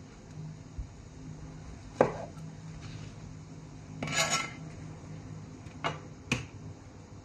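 Chef's knife cutting pineapple on a cutting board: a few sharp knocks of the blade meeting the board, one about two seconds in and two close together near the end, with a short scraping rustle around four seconds in.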